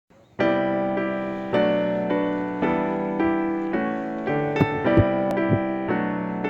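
Background music: piano-like keyboard chords struck about once a second, each fading away, with a few soft knocks near the middle.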